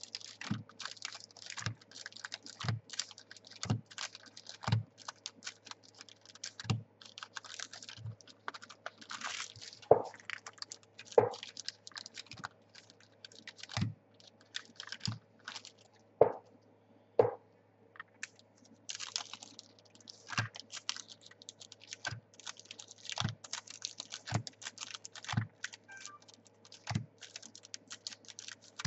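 Trading card packs being opened and the cards handled: wrapper crinkling and a dense patter of small clicks, with a soft tap every second or so as cards are squared up and set down.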